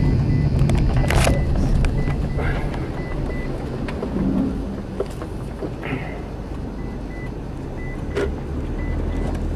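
Car running, heard from inside the cabin: a steady low engine hum, with a few sharp clicks and knocks and a faint high beep pulsing on and off.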